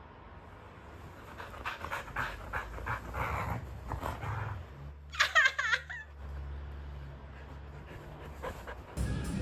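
Border collie panting, then giving a high, whining yawn about five seconds in.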